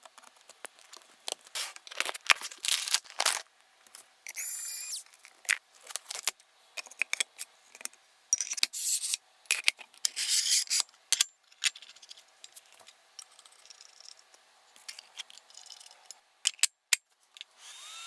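Hands handling and fitting PC components: a run of sharp clicks and taps mixed with short stretches of rustling and rubbing of plastic and metal parts.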